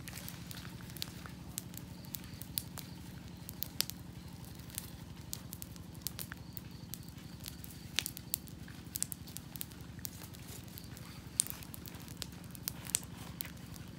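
Wood campfire crackling, with irregular sharp snaps over a steady low background noise.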